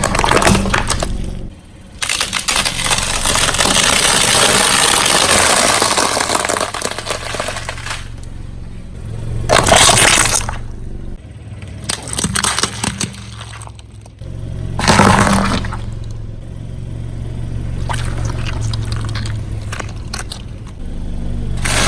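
A car's tyre rolls over and crushes objects in a series of cracks, crunches and splashes. One long stretch of crushing noise is followed by several shorter bursts. The car's engine runs low and steady underneath.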